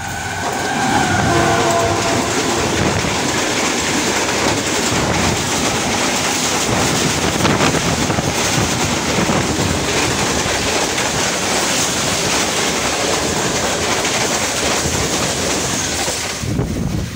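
A Pakistan Railways diesel-hauled express passes at close range on the adjacent track. Its multi-tone horn sounds briefly at the start as the locomotive arrives, then the coaches roll by with steady wheel-and-rail noise and clickety-clack over the rail joints. The noise falls away near the end as the last coach passes.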